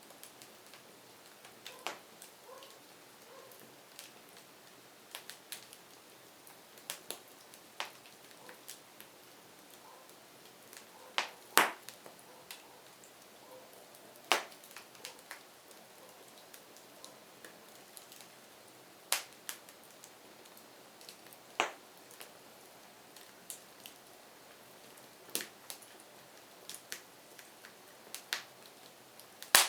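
Firewood burning, crackling with irregular sharp pops and snaps over a faint, low hiss; a few pops are much louder than the rest.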